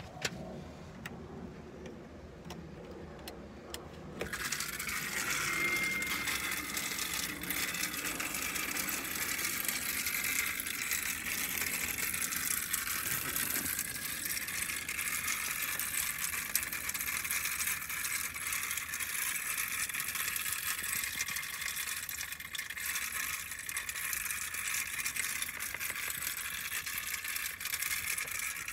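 Small USB-powered handheld grinder. After a few handling clicks, its motor switches on about four seconds in and runs with a steady high whine while it grinds.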